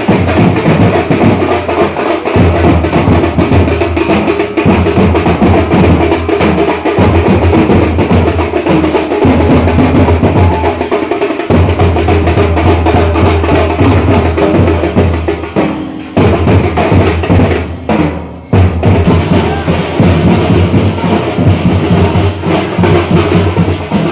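Loud drum-led music, drums beating continuously, with two brief drops about sixteen and eighteen seconds in.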